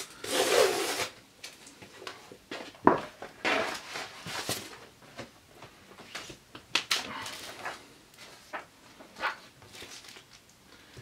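Packaging and a laptop skin in a plastic sleeve being handled: irregular rustling and crinkling with a few sharp knocks, the loudest a short burst of rustling at the start and a knock about three seconds in.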